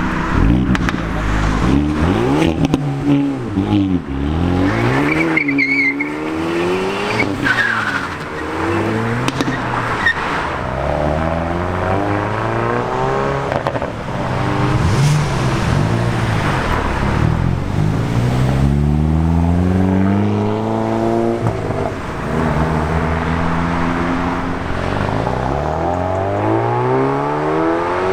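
Hyundai i30N hot hatches' turbocharged four-cylinder engines revving and accelerating one after another through sport exhausts, the engine note repeatedly climbing and dropping in pitch. A brief high squeal comes about five seconds in.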